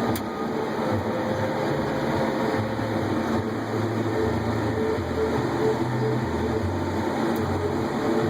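John Deere S690 combine running steadily while harvesting corn with a 618C corn head: a constant mechanical drone with a low hum that wavers slightly.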